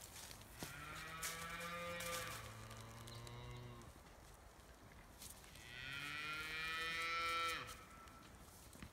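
Highland cattle mooing twice: a long moo from about half a second in that drops in pitch partway through, and a second moo from around five and a half seconds that rises at its start and stops sharply near the eighth second.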